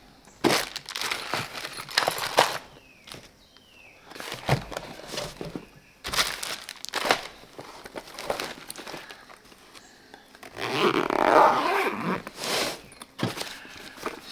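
Irregular clunks, knocks and rustling, as of things being handled and moved about.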